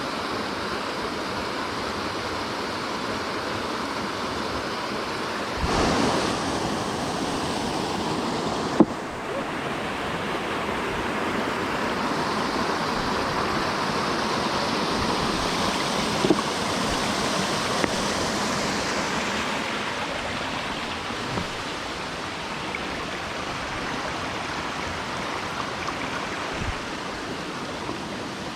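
Steady rushing water of a small mountain creek falling over a little waterfall. The rush shifts in tone a couple of times, and there is a single sharp click about nine seconds in.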